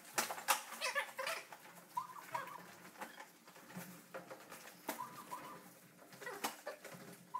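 Scattered light knocks and handling noises as bags are carried out of an elevator, with short high squeaks mixed in.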